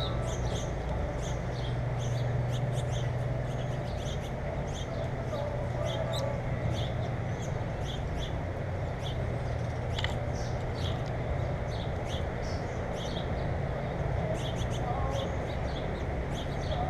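Small birds chirping, many short high chirps in quick succession, over a steady low rumble.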